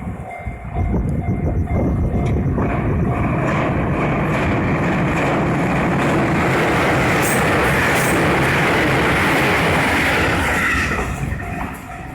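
An electric train passing over a railway level crossing, with wheels clicking over the rail joints, building up about a second in and fading near the end. The crossing's warning bell keeps ringing throughout.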